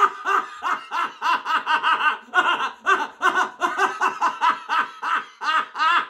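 A man laughing hard, a long unbroken run of short ha-ha bursts, about four a second, each rising and falling in pitch.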